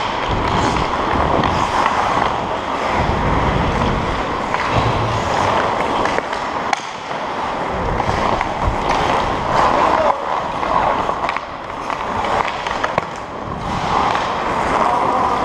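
Hockey skate blades scraping and gliding on the ice in a steady run of noise, heard from a helmet-mounted camera, with scattered sharp clicks from sticks and puck.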